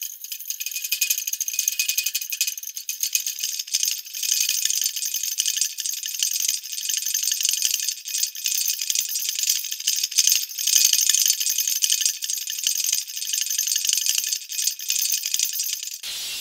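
Glass light bulbs used as sounding objects, giving a dense, high rattling and tinkling made of many tiny clicks, with nothing low beneath it. Just before the end it turns to an even hiss.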